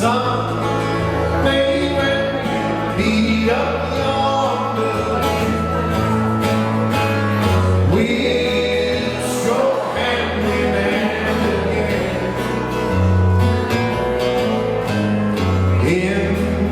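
Slow country song with guitar over a steady bass line, the bass notes changing every second or two, and a few sliding notes.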